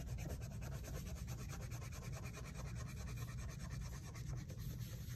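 Crayon scribbling rapidly back and forth on paper, colouring in a shape in quick, even strokes, over a steady low hum.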